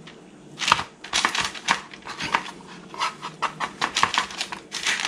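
Wet crab cake mixture being patted and shaped by hand: a quick, irregular run of soft pats and clicks, several a second, starting about a second in.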